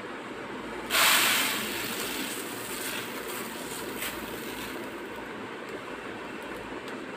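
Dry grain poured from a cloth bag into a plastic tub: a sudden rushing hiss about a second in, loudest at the start and thinning to a light trickle over the next few seconds.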